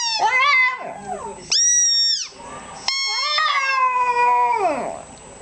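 Shih Tzu howling in a run of high-pitched, wavering notes, some held and one sliding down in pitch near the end.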